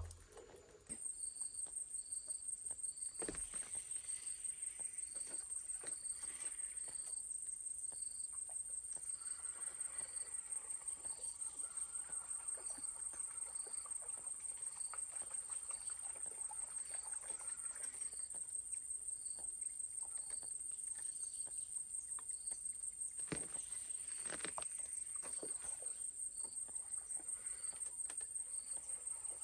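Insects chirring in a steady, rapidly pulsing high-pitched trill that starts about a second in, with a softer second call repeating about once a second.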